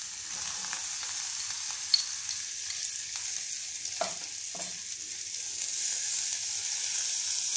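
Chopped fresh coriander sizzling in hot oil in a kadhai with the mustard-seed, hing and turmeric tempering, being stirred with a spatula. A steady hiss with a few short sharp clicks, growing louder about two-thirds of the way through.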